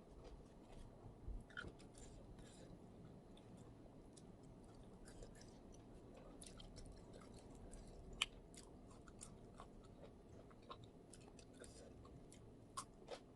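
Faint close-up chewing of food, with scattered small mouth clicks. There is a sharper click about eight seconds in and two more near the end.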